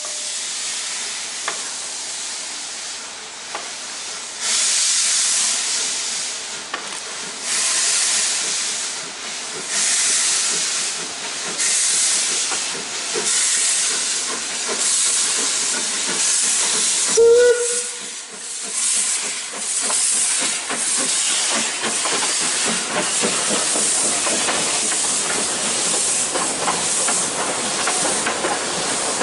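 Narrow-gauge steam tank locomotive pulling away with its train: loud hissing steam that surges in repeated exhaust beats, coming faster as it gathers speed. One brief whistle note sounds about halfway through.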